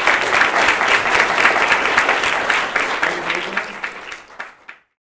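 Audience applauding, fading over the last couple of seconds and cutting off near the end.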